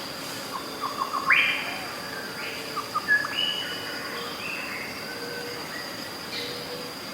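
Birds chirping and whistling: clusters of short sharp chirps about one and three seconds in, and scattered whistled notes, over a steady high-pitched tone.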